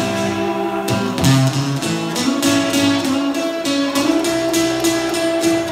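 Acoustic guitar strummed in a steady rhythm, an instrumental break with no singing.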